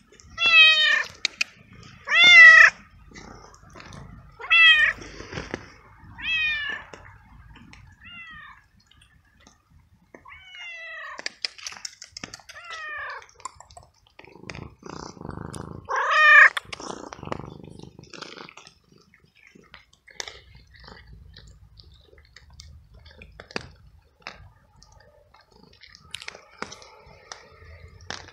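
Tabby stray cat meowing again and again: about eight meows in the first seventeen seconds, the loudest about sixteen seconds in. After that only faint scattered clicks.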